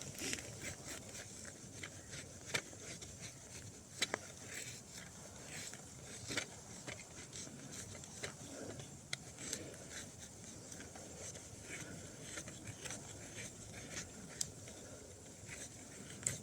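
Leatherman Surge knife blade shaving thin curls off a damp stick to make feather sticks: a run of short, irregular scraping strokes with occasional sharper cuts.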